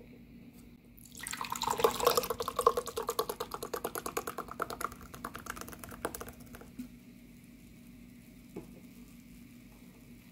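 Sparkling kombucha poured from an aluminium can into a glass: rapid glugging starts about a second in, with the drink fizzing as it foams, and dies away after about five seconds.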